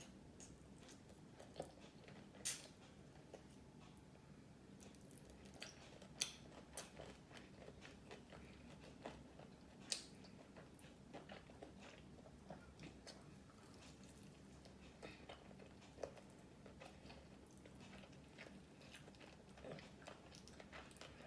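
A person chewing and biting fast food close to the microphone: soft chewing with sharp, crisp crunches now and then, the loudest a few seconds apart.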